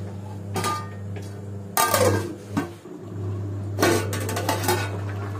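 Aluminium lid being set onto a cooking pot on the stove, giving several ringing metal clanks, the loudest about two seconds in and a quick cluster around four seconds in, over a steady low hum.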